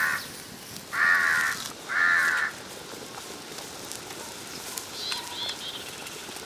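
Crow cawing, three calls about a second apart in the first couple of seconds, followed by a few faint, short, high chirps from a smaller bird.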